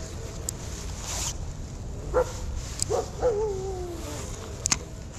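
A dog barking twice, then giving a longer call that falls in pitch. A couple of sharp clicks sound alongside.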